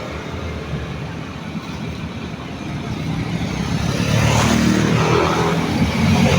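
Road traffic, with a motor vehicle passing close: its engine and tyre noise swell from about three seconds in and stay loud to the end.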